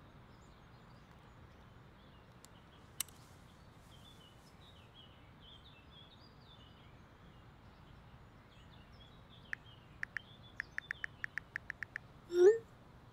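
Quiet park ambience with birds chirping. Near the end, a phone's keyboard clicks about a dozen times in quick succession as a text is typed, then a short rising electronic tone, the loudest sound, as the message is sent.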